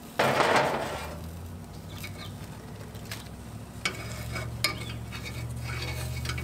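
Portobello mushrooms sizzling in a short burst on the hot grill grate, then metal tongs clicking against the grates a few times as the mushrooms are lifted off, over a low steady hum.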